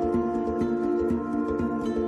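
Calm ambient background music: sustained ringing tones with short notes sounding two or three times a second over them.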